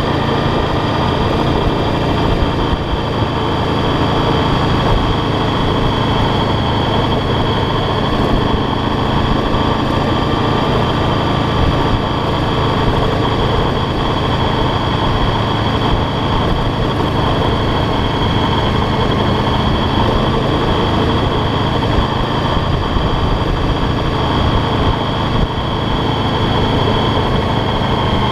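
Motorcycle engine running at a steady pace, heard from a camera mounted on the bike behind its windscreen, with a steady whine over a rough wind rumble on the microphone.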